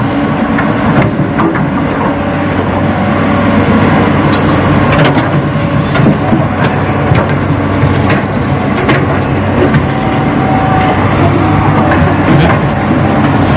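Radio-controlled model excavator and dump truck at work: a steady engine-like running hum with scattered short clicks and knocks.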